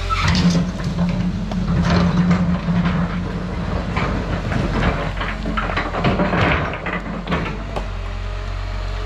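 Caterpillar hydraulic excavator running under load as its bucket works the dirt and rock of a creek bank, with repeated clanks and knocks over the steady engine hum. The engine note drops back near the end.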